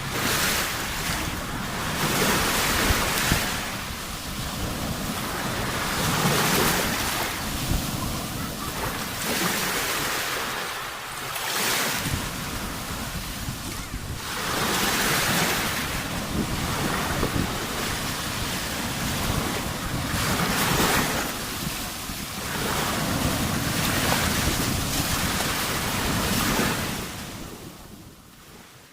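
Sea waves breaking and washing ashore in repeated surges a few seconds apart, with wind on the microphone. The sound fades out near the end.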